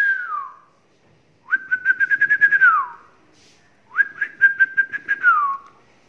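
A person whistling to call a pet lovebird: two long whistles held on one steady note, each sliding up at the start and down at the end, with a quick fluttering pulse of about eight beats a second. The falling tail of an earlier whistle fades out in the first half second.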